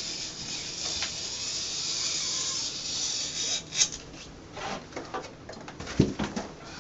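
Utility knife blade drawn along the vinyl wall mural in a steady scraping hiss as the excess is trimmed off, followed by several sharp clicks and knocks, the loudest a dull thump about six seconds in.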